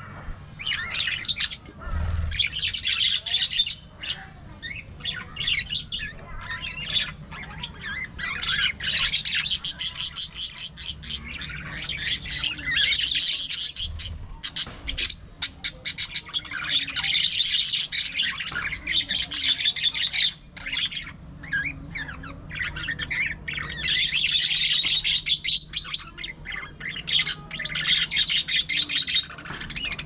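A flock of budgerigars chattering and warbling: dense, rapid chirping and squawks in bouts that swell and fade every few seconds.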